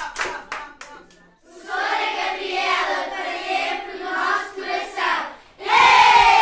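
A few hand claps, then a class of young children singing together unaccompanied, ending loudly on a last held note that falls slightly in pitch.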